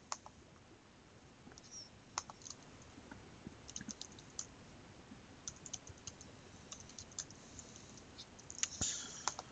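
Faint typing on a computer keyboard: scattered soft key clicks, a little louder near the end.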